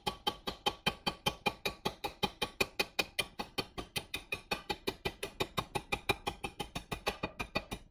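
Hammer rapidly tapping a seized stud out of a tractor's clutch pulley: about six evenly paced metal-on-metal strikes a second, each with a short ring.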